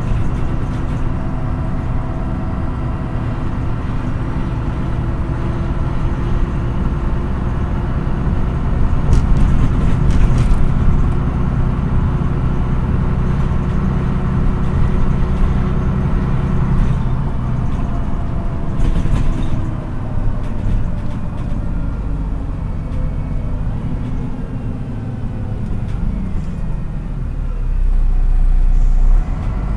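MAN NÜ 313 city bus heard from inside the passenger cabin, its diesel engine running under way. The engine pitch dips and rises with speed and gear changes, with a few sharp knocks and rattles. Near the end a low rumble swells and then cuts off suddenly.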